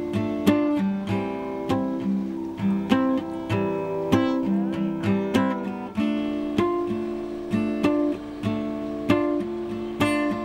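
Background music: acoustic guitar playing, picked and strummed notes in a steady rhythm.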